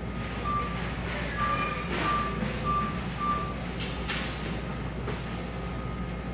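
A run of five short electronic beeps at one pitch, about two a second, over steady store background noise, then a sharp click a little after the middle.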